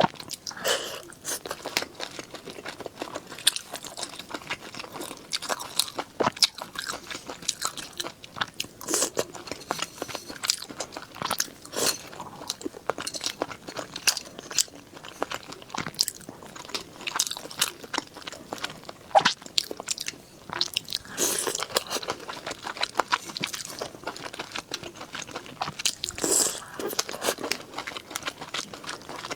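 Close-up eating sounds: someone biting and chewing crunchy food, with many irregular sharp crunches and crackles, no rhythm, and some wetter smacking between them.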